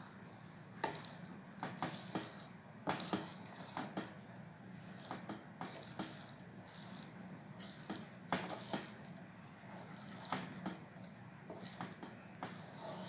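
Wooden spatula stirring green chillies and gram flour in an unheated nonstick pan: irregular scraping and rubbing strokes against the pan, roughly one every half second to second.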